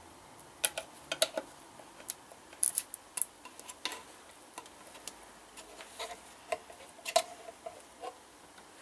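Metal paint tin lid being levered off with a screwdriver: irregular sharp metallic clicks and taps as the tool works around the rim, the loudest about seven seconds in as the lid comes free.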